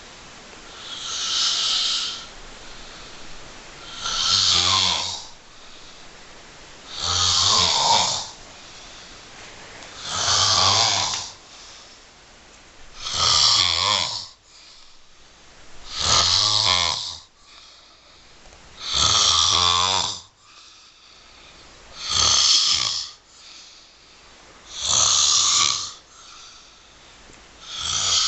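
A person snoring loudly in a steady rhythm, one snore about every three seconds, each lasting about a second, with quieter breathing between.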